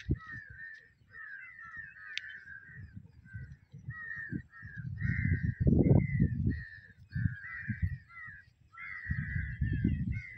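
A flock of crows calling continuously, many short overlapping caws at much the same pitch. Gusts of wind rumble on the microphone on and off, loudest about halfway through and again near the end.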